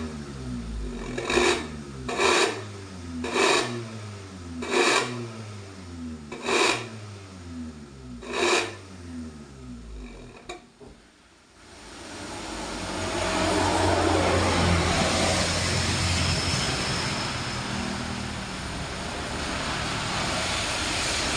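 Suzuki New Carry's engine through a two-branch 'suos ngorok' aftermarket exhaust, blipped about seven times, each sharp rev falling away in pitch. About twelve seconds in it settles into a long, steady, louder run at higher revs.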